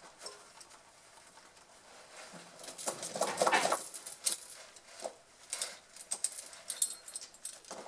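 Steel V-bar tire chain links jangling and clinking as the chain's hook ends are pulled together and fitted around a truck tire. Quiet for the first couple of seconds, then a loud rattle of chain lasting about two seconds, followed by several shorter clinks.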